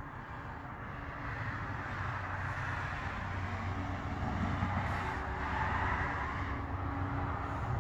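A motor vehicle running with a steady low hum, swelling louder over the middle of the stretch. A few faint pops sound at intervals of about two and a half seconds.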